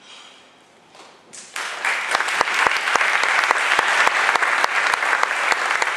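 Audience applauding, starting about a second and a half in.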